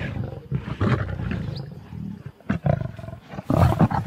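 Lions growling and snarling as they fight over a warthog carcass, in rough, uneven bursts, with a louder outburst near the end.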